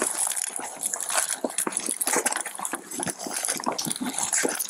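Scuffle noise picked up by an Axon Body 3 police body camera during a struggle on the ground: dense, irregular rustling and scraping as clothing and bodies rub against the camera's microphone.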